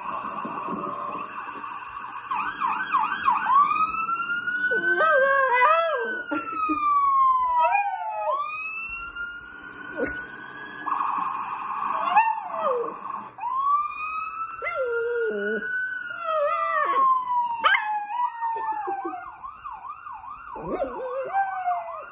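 A dog howling along with an emergency-vehicle siren. The siren switches between slow rising-and-falling wails and a fast warbling yelp near the start and again near the end, while the dog's lower, wavering howls come in under the wails.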